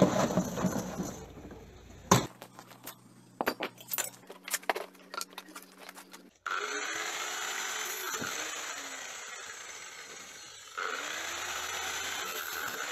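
Scattered handling knocks and clicks, then a Makita angle grinder with an abrasive cutting disc starts suddenly about six seconds in and runs steadily. A little before the end it grows louder as the disc is brought down into a steel bar.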